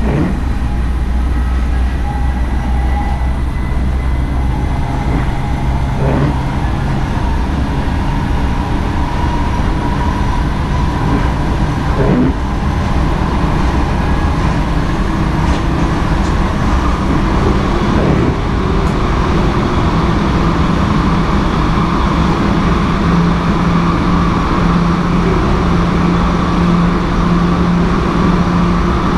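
NS SGM Sprinter electric multiple unit running on the line, heard inside the driver's cab: steady wheel-and-rail running noise with a motor hum that climbs slowly in pitch through the second half, and a few single clicks over the track.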